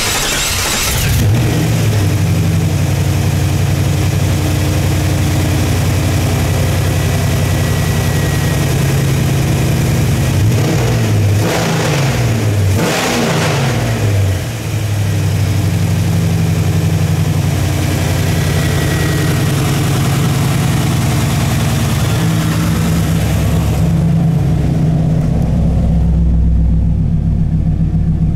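A 1994 Camaro Z28's LT1 5.7-litre (350 ci) V8, with about 150,000 miles on it, idling steadily. It is revved briefly twice about halfway through, then settles back to idle. Near the end it is heard more muffled, from inside the car.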